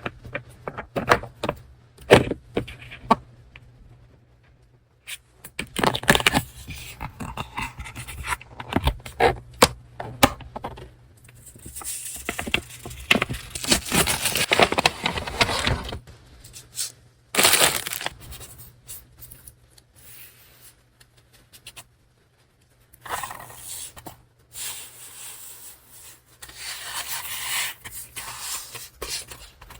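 Paper stationery handled close to the microphone: sharp taps early on, then stretches of paper rustling and scraping, with a short lull before more rustling near the end.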